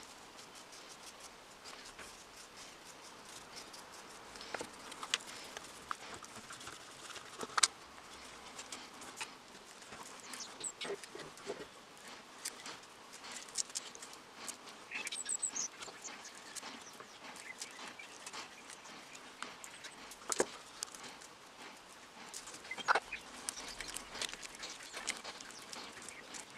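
Quiet handling noise at a workbench: scattered light clicks, taps and scrapes from a small plastic mixing cup, stirring stick and the breast drill's handle being worked by gloved hands, with a few sharper knocks, the loudest about eight seconds in.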